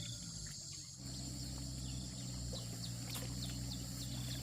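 Outdoor ambience: a steady insect chorus with short chirps repeating from about a second in, over a steady low hum.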